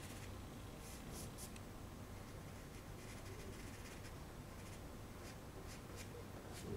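Faint scratching and rubbing of a Conte crayon on toned drawing paper, with a few short strokes about a second in and again near the end.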